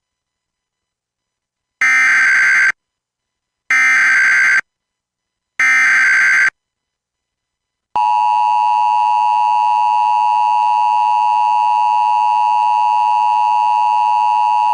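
Emergency Alert System header: three short bursts of digital SAME data tones about a second apart, then from about eight seconds in the loud, steady two-tone EAS attention signal, marking the start of an Amber Alert broadcast.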